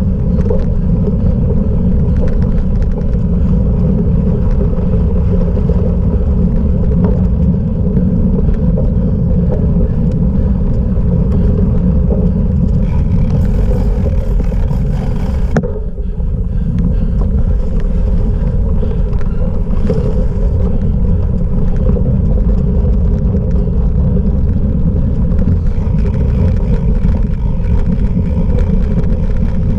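Steady loud rumble of wind buffeting the microphone and tyres rolling over rough ground, picked up by a camera on a cyclocross bike being raced. There is a brief lull about halfway through.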